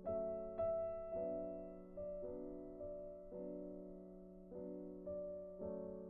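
Soft background piano music: gentle sustained chords and single notes, each struck and left to fade.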